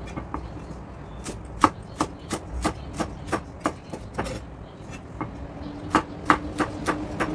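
Cleaver chopping carrot sticks into dice on an end-grain wooden cutting board: sharp, even knocks of the blade on the wood, about three a second, with a short pause midway before the chopping resumes.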